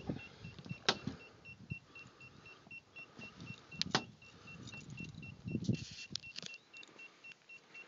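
Rapid electronic warning beeps, short and high, about four a second, with a few sharp knocks and a low clunk of handling mixed in.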